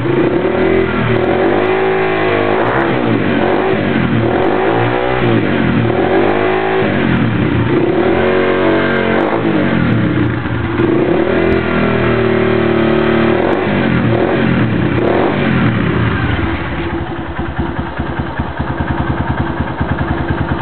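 Honda CG Titan's single-cylinder four-stroke engine breathing through an aluminium Roncar aftermarket exhaust, revved up and let fall again and again in short blips. About 17 seconds in it drops back to idle with an even, pulsing exhaust beat.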